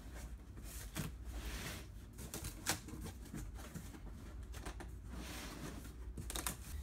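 Corrugated cardboard box flaps, cut along the top, being bent down and folded inward by hand. They give irregular creaks, crinkles and taps.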